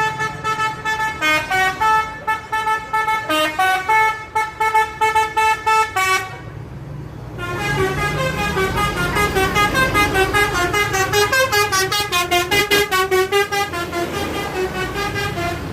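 Basuri multi-tone bus horn playing a telolet tune. Held notes step up and down in pitch for about six seconds, then it stops for about a second and a half, then plays a quicker run of short notes.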